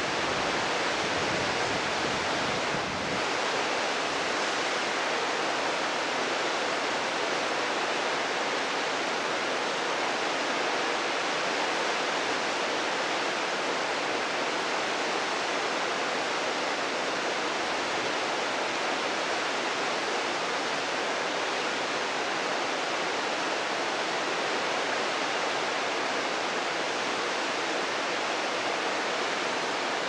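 Mountain stream rushing: a steady, even wash of water noise. The low rumble under it thins out about three seconds in.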